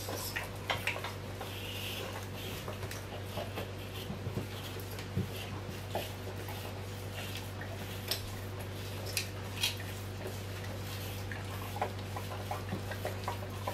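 A puppy licking and lapping at cream cheese: scattered soft wet licks and small sharp clicks, over a steady low hum.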